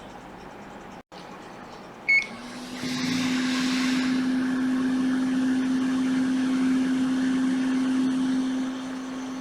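Hot-air rework station beeps once as it is switched on, then its blower runs steadily with a low hum and a rush of air, easing lower near the end.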